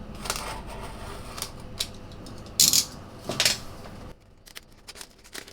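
Hands unwrapping a small product box: scattered clicks and rustles, with two louder crinkling rips of the wrapping about two and a half and three and a half seconds in.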